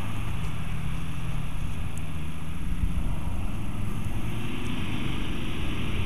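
Land Rover engine running at low revs as the vehicle crawls off-road through mud, with the revs climbing from about four seconds in.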